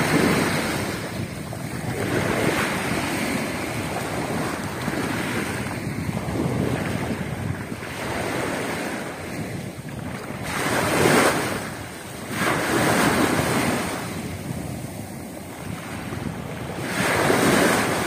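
Small waves of a calm sea splashing onto a pebble shore, swelling louder every few seconds, with wind buffeting the microphone.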